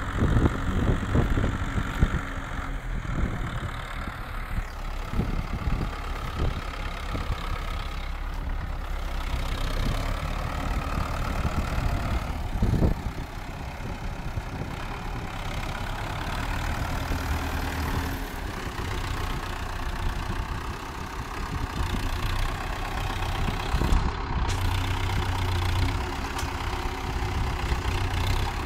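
Zetor tractor's diesel engine running steadily close by as the tractor drives with its front loader raised, with small rises and falls in engine note.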